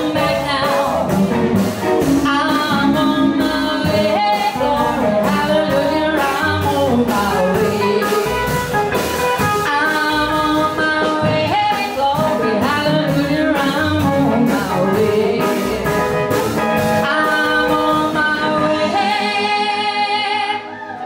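Live blues band playing: a woman singing over electric guitar, acoustic guitar and a drum kit with steady cymbal strokes. Near the end the drums and cymbals stop and the music drops quieter.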